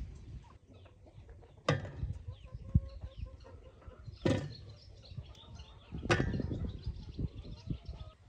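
Three loud knocks about two seconds apart, over chickens clucking.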